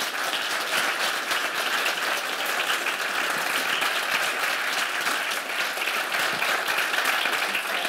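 An audience in a conference room applauding steadily, a dense patter of many hands clapping at the end of a talk.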